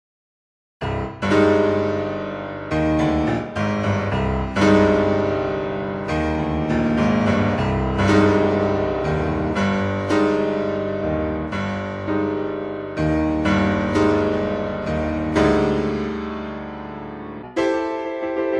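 Solo piano music, starting about a second in, with a steady run of struck notes and chords that each ring and fade.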